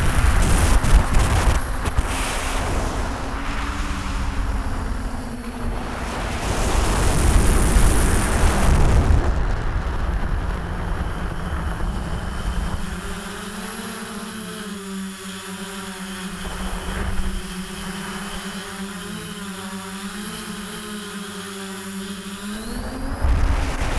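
Six Propdrive 28-30S 900KV brushless motors spinning 10x5 Graupner E-Props on a DJI F550 hexacopter in flight, heard from the onboard camera. For the first nine seconds or so a rough wind rumble covers the motors. From about ten seconds in they settle into a steady hum with a fixed pitch, over a high steady whine.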